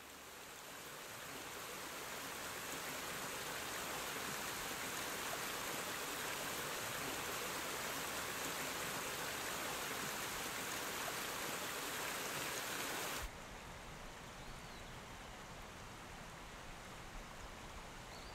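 Shallow rocky stream rushing over stones: a steady wash of water that fades in over the first few seconds. It cuts off about 13 seconds in, giving way to a quieter outdoor background with two brief high chirps.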